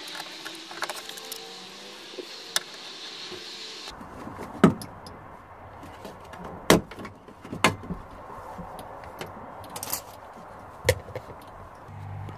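Hands working plastic parts on a bare car door's inner panel: a handful of sharp plastic clicks and knocks, spaced one to three seconds apart.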